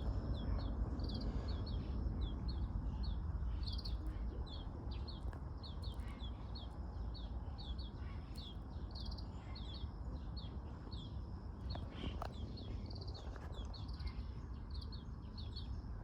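Bird chirping over and over, short high falling notes two or three a second, over a steady low rumble of wind or distant traffic.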